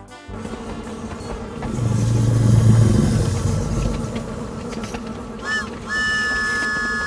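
Cartoon train running along the track with a low rumble, then a short toot about five and a half seconds in and a long, steady whistle blast from about six seconds on.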